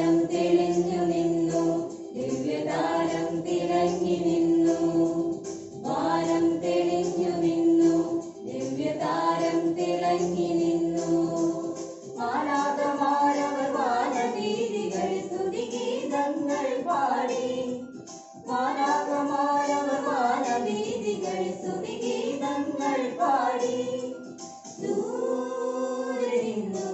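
A family group of men and women singing a hymn together, in sung phrases a few seconds long with short breaks between. Long held notes in the first half give way to a more moving melody about halfway through.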